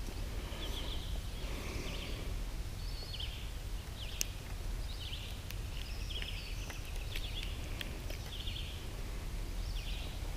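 Outdoor ambience of short, high chirping trills repeating every second or so over a steady low rumble, with one sharp click about four seconds in.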